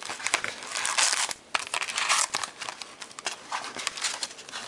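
Trading card pack wrappers being crinkled and torn open by hand, a dense, irregular crackling.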